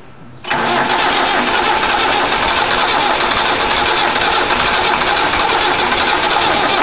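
Austin LD truck's engine running loudly and steadily. It comes in suddenly about half a second in and starts to fall away at the end.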